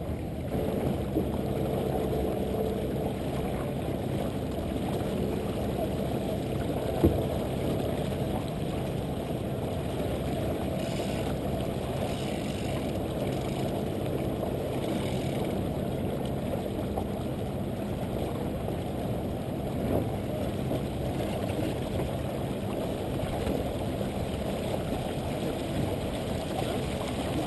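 Low, steady rush of water along a small sailboat's hull under sail, mixed with wind on the deck-mounted camera's microphone, with a single sharp knock about seven seconds in.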